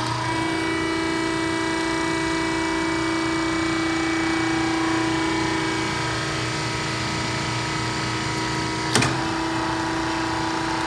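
Powered hose crimping machine running with a steady mechanical hum while it crimps a fitting onto a hydraulic hose, with a sharp click about nine seconds in.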